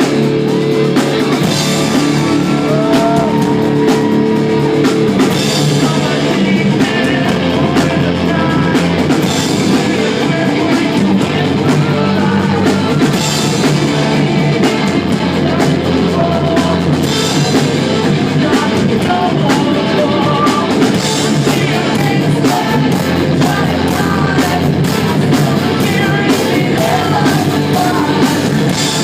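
Live rock band playing loud and steady, with electric guitars, a drum kit and singing.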